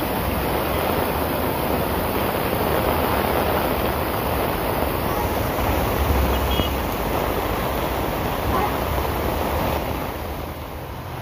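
Heavy rain pouring steadily onto a flooded road, with vehicles splashing through the standing water and a brief low rumble about six seconds in. The downpour softens a little near the end.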